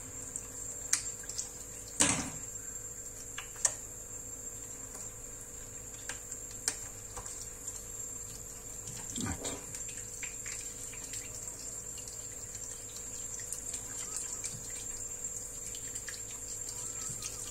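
Knife filleting a fish along its backbone: a few scattered short knocks and scrapes, the sharpest about two seconds in, over a steady low hiss.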